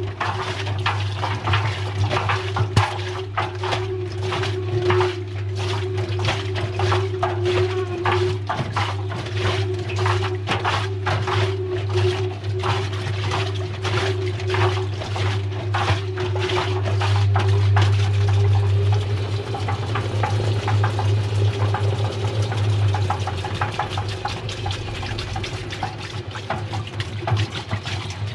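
Washing machine drum turning with water sloshing and hard cubes clattering and knocking against the drum in quick succession, over a steady motor hum.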